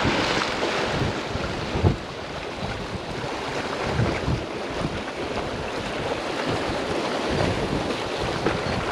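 Surf washing and breaking over jetty rocks, a steady rushing noise, with wind buffeting the microphone in irregular low gusts, the strongest just before two seconds in.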